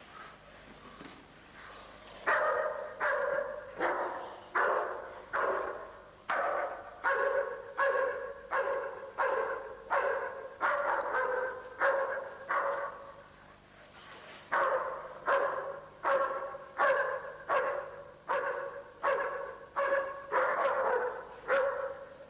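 A dog barking repeatedly at about one to two barks a second, starting about two seconds in, with a short break just past the middle.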